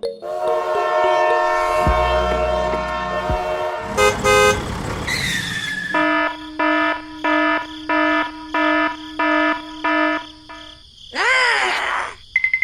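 A sequence of horn-like sound effects. A held multi-note tone lasts about four seconds and is followed by a short falling whistle. Then come about ten short repeated honks at roughly two a second, and a swooping tone that rises and falls near the end.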